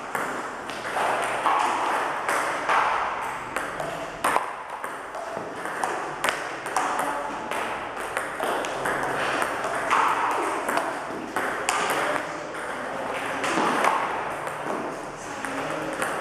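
Celluloid-style table tennis balls clicking in rapid, irregular succession off rubber-faced paddles and the tabletop in a multiball feeding drill, one ball hit after another.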